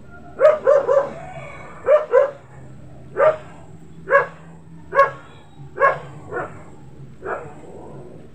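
An animal's short, pitched calls: a quick run of three, then a pair, then single calls about once a second, growing weaker toward the end.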